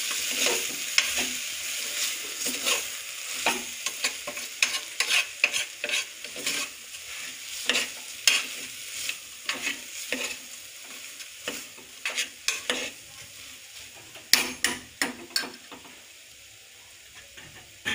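Washed rice and soaked moong sizzling as they are sautéed in oil in a pressure cooker pot. A steel spoon stirs, scraping and knocking against the pot about once a second, with a quick run of knocks near the end. The sizzle fades as the stirring stops.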